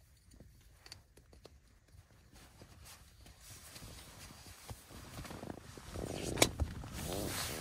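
Fabric rustling and small knocks as camping gear is handled in a small tent, growing louder near the end, with one sharp click a little over six seconds in.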